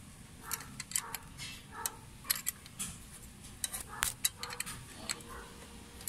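Metal tool clicking and clinking irregularly while a 10 mm nut is tightened onto a glow plug wire terminal.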